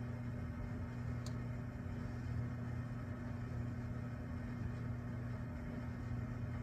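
A steady low mechanical hum with an even background rush, unchanging throughout. One brief faint high click comes about a second in.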